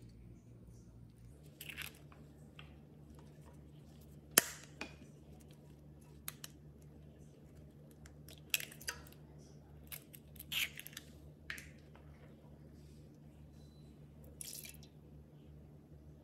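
An egg being cracked open by gloved hands over a bread machine pan: a scatter of short cracks and crinkles, the sharpest about four seconds in, over a faint steady hum.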